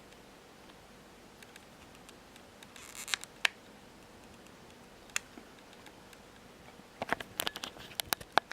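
Small plastic buttons on a dashcam clicking as they are pressed, with light handling of the unit: two clicks about three seconds in, one about five seconds in, and a quick run of clicks and rattles near the end.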